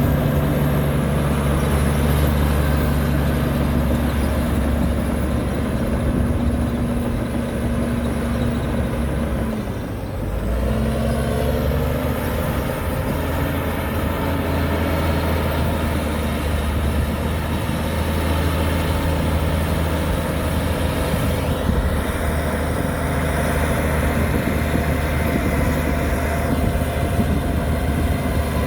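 Heavy diesel engines of construction machinery running steadily under load. About ten seconds in the engine note drops away briefly, then rises again.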